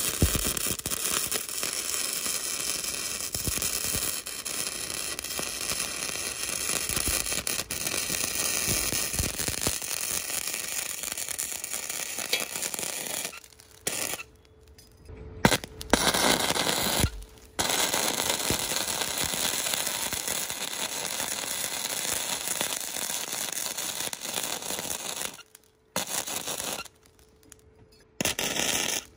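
Sustained crackling, hissing metalworking noise in long stretches, broken by a few short silent gaps.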